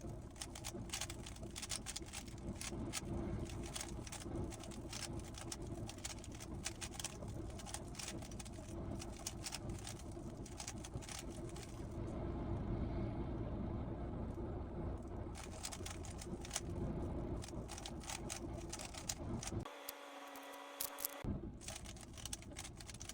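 A 3x3 Rubik's cube being turned quickly by hand: a rapid run of plastic clicks and clacks, over a steady low background rumble and hum.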